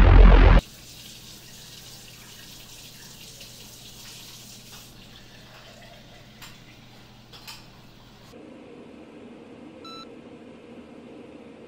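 Electronic music cuts off abruptly within the first second, leaving a faint steady hiss with two small clicks. Near the end a low hum comes in and a digital alarm clock gives a single short electronic beep.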